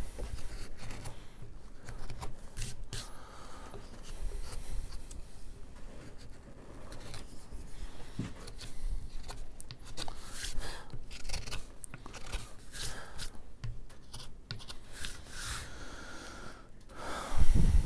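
Hook knife with a reverse bevel slicing shallow scoops from a wooden plank: a run of irregular short scraping cuts as the blade shaves off thin curls.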